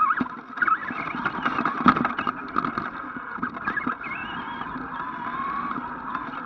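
Onboard sound of an ECX AMP RC truck driving, heard from a camera strapped to it. Its electric motor whines and its chassis rattles as it bumps over grass, with a sharp knock about two seconds in. About four seconds in it settles into a steadier hum on smooth tarmac, the motor's whine gliding up and down with the throttle.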